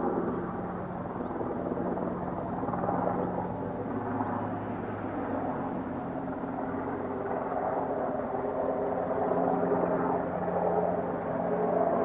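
Steady low drone of an engine or motor running in the background, with a humming tone whose pitch shifts slightly a few times.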